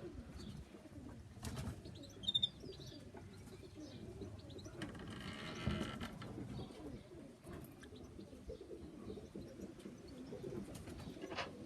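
Pigeons cooing softly and steadily, with a few short high chirps.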